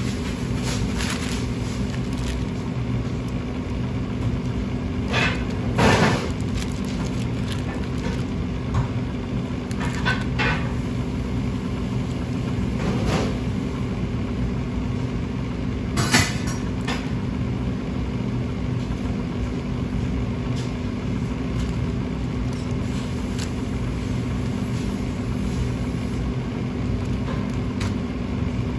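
Steady low hum of commercial kitchen machinery, with a few short crinkles and knocks as plastic film is pulled off raw tuna blocks on a plastic cutting board.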